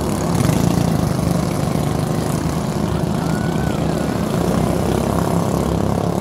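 Engines of small motorized outrigger racing boats droning steadily as they speed across the water.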